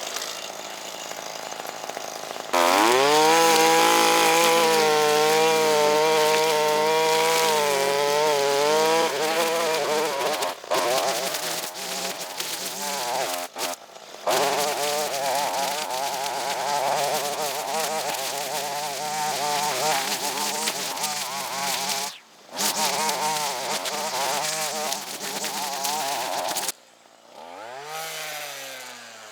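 Small two-stroke engine of a handheld cutting tool, brush cutter or chainsaw, revved up sharply about two and a half seconds in. It runs at high throttle with the pitch wavering under load, drops out briefly a few times, cuts off near the end, then gives one short rev that rises and falls.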